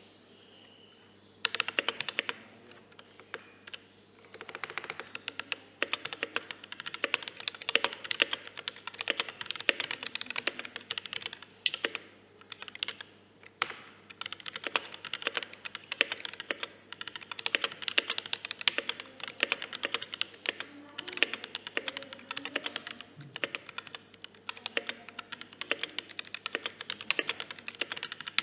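Typing on a Tofu65 mechanical keyboard with lubed and filmed T1 switches and cherry-profile keycaps: a fast, continuous run of keystrokes starting about a second and a half in, broken by a few short pauses.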